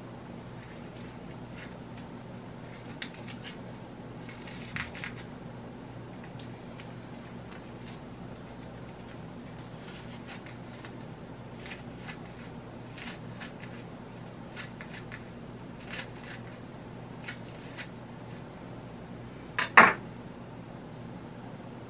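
Kitchen knife peeling and cutting an onion held in the hand into small pieces: scattered short, crisp slicing and scraping sounds over a steady low hum, with one sharp, loud knock near the end.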